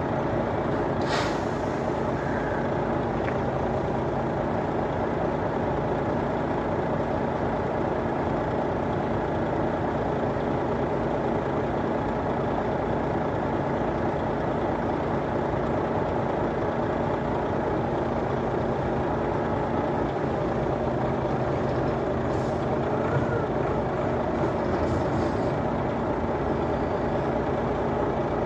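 Heavy vehicle engine running steadily under load, from the container forklift or the truck, with a brief high hiss about a second in.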